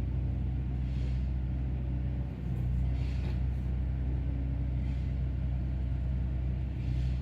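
Small excavator's diesel engine running with a steady low rumble, with faint hissy swells about every two seconds.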